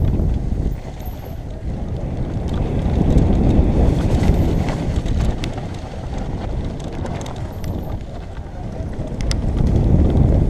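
Wind buffeting a helmet-mounted camera's microphone and mountain-bike tyres rolling fast over dirt and loose stone on a downhill run, with scattered sharp clicks from the bike and trail. The noise swells louder a few seconds in and again near the end.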